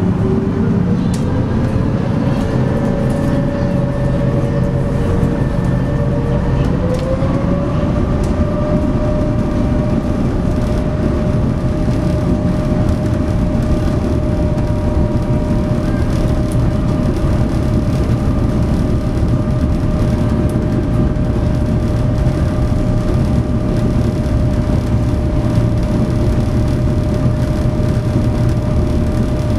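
SeaBus passenger ferry's engines running, heard aboard: a steady low rumble with a whine that rises in pitch over the first several seconds as the engines speed up, then holds at one pitch.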